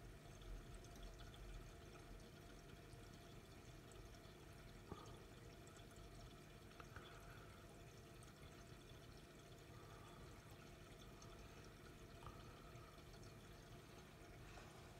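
Faint, steady trickle of water from an aquarium filter, with a low hum and a couple of soft clicks.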